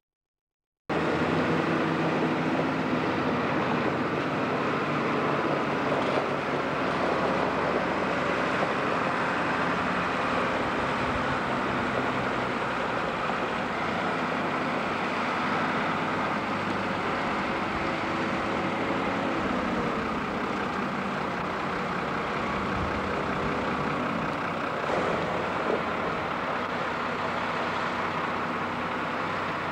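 Diesel farm tractor engines running, the engine note shifting in pitch now and then and dropping around the middle. The sound cuts in abruptly about a second in.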